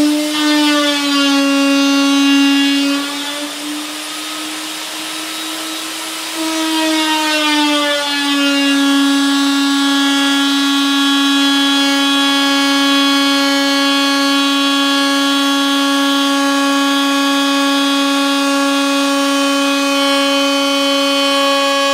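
Festool router with a bearing-guided flush-cut bit running at high speed and cutting a rabbet along a plywood deck edge, a loud steady whine. Its pitch wavers and the level dips over the first eight seconds as the bit's load changes, then holds steady.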